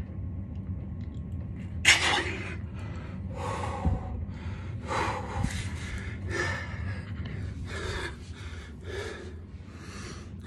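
A man breathing hard and fast from the effort of push-ups, quick loud breaths about two a second, starting about two seconds in.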